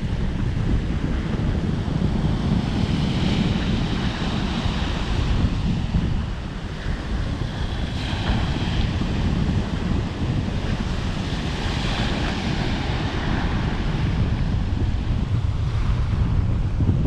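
Ocean waves breaking and washing ashore in swells, with wind buffeting the microphone as a low rumble.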